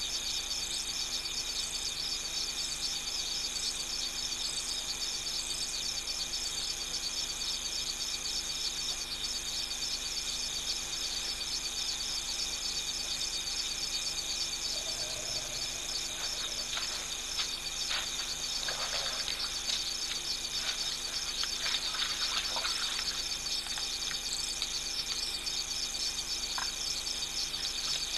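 Steady chorus of night insects, a dense high trilling that runs on without a break. In the second half a few faint clicks and splashes sound over it.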